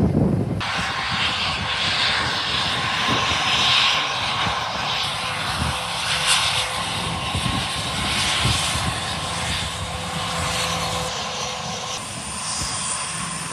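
Business jet's engines running as it rolls along the runway: steady jet noise with a faint whine. About twelve seconds in, the sound cuts to the quieter engine noise of a distant regional airliner taxiing.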